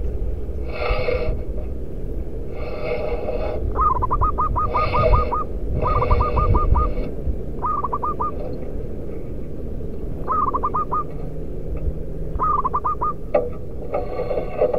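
Zebra dove (perkutut) singing: bursts of rapid staccato cooing notes, about five to eight notes a burst, repeated every couple of seconds. Several longer calls with a fuller sound are mixed in during the first half, over a steady low rumble.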